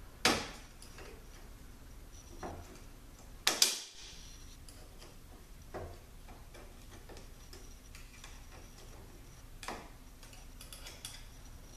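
Small screwdriver prying at a steel snap ring in a ZF8HP70 transmission clutch drum: a handful of sharp metallic clicks a few seconds apart, the loudest about three and a half seconds in, with lighter ticks near the end as the ring is worked out of its groove.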